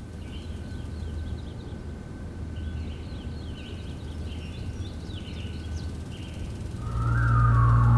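Outdoor ambience: birds chirping over a steady low rumble. About seven seconds in, a whistled melody and a deep bass note start loudly: the whistled hook that opens the song.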